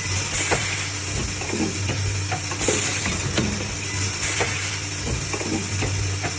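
Automatic studded-tube spot welding machine running: a steady electrical hum under sizzling weld spatter that swells every second and a half to two seconds, with many short clicks and knocks.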